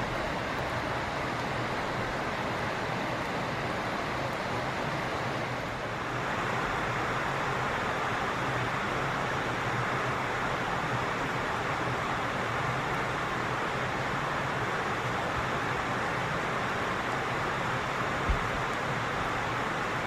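Steady rushing ambient noise with no bird calls or other distinct events; its tone shifts slightly at a cut about six seconds in, and a single faint low thump sounds near the end.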